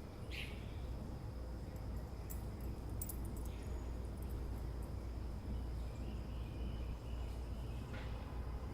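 Early-morning suburban ambience: a steady low distant rumble with a faint, steady high insect-like tone, and a few brief bird calls, one just after the start and one near the end.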